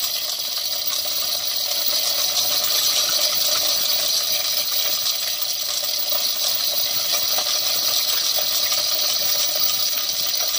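Steady metallic clinking of a manual chain block's chain running through the hoist as a submersible pump and its pipe are lowered into a borewell.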